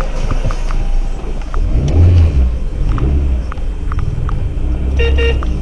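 Car engine running with a steady low rumble, heard from inside the car's cabin.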